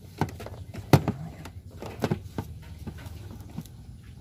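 Cables and their plugs being handled and fitted: a few irregular knocks and clicks, the loudest about a second in, over low rustling handling noise.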